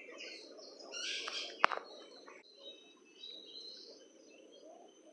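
Birds chirping and calling in short high notes, with one sharp click about one and a half seconds in.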